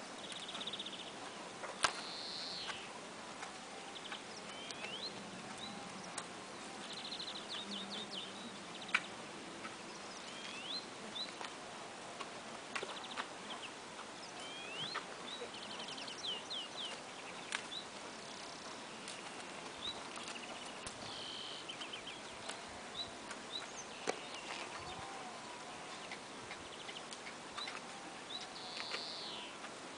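Small songbirds chirping and trilling over and over, with short rising notes and rapid trill bursts, over faint rural background noise. There are a few sharp clicks scattered through.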